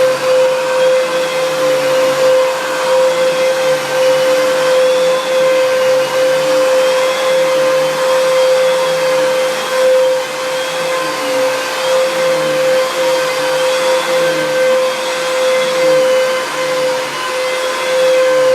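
Fantom Cyclone XT vacuum cleaner running: a steady motor whine with a wavering tone that swells and falls about every two seconds. The owner says it doesn't sound quite right.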